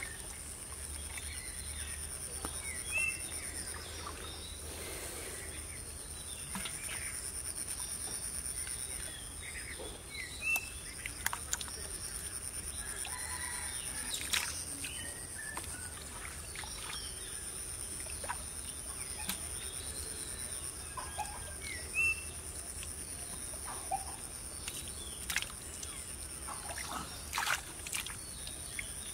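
Wet squelches and splashes from a hand groping about in a flooded mud hole, short and irregular. Birds call now and then, over a steady high-pitched hum.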